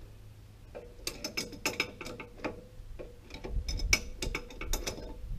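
Wrench working loose the hydraulic hose fitting on a loader lift cylinder: clusters of quick metallic clicks, starting about a second in.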